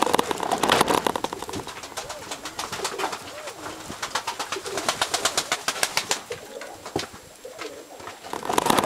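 Domestic pigeons cooing, low wavering coos over a busy patter of clicks and rustling.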